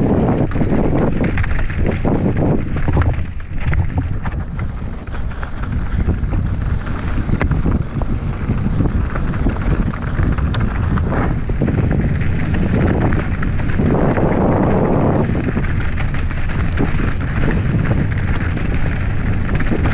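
Wind buffeting the microphone of a camera on a mountain bike descending a rocky dirt singletrack, over the rush of knobby tyres on loose stones and the bike's frequent clicks and rattles.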